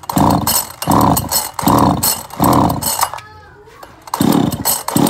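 G320 chainsaw being pull-started: six hard yanks of the recoil starter, four in quick succession, a short pause, then two more. The engine cranks with each pull but does not catch.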